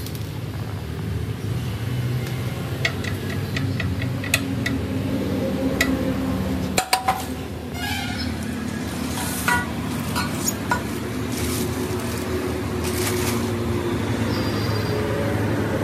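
Metal clinks of a spanner working on the Royal Enfield's exhaust mounting bolts as the stock silencer is unbolted. There is a run of evenly spaced clicks a few seconds in and a heavier clank around seven seconds in as the silencer comes free, followed by scattered lighter clinks, all over a steady low hum.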